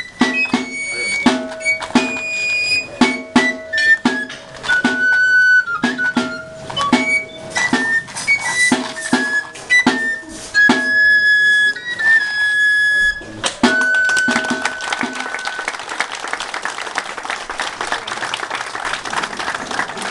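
Basque pipe and tabor (txistu and small drum) playing a lively high, whistle-like dance tune over a steady drum beat; the tune stops about fifteen seconds in and applause follows.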